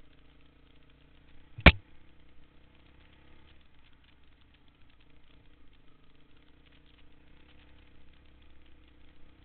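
Honda dirt bike engine running steadily and faintly while riding a trail, with one loud, sharp knock a little under two seconds in.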